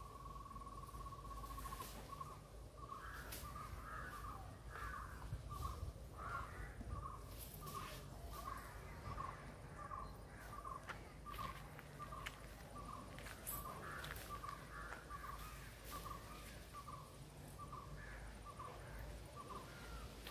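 A bird calling from the trees: a held note that breaks, about two seconds in, into a steady string of short notes at the same pitch, roughly one and a half a second, with scattered faint clicks and knocks.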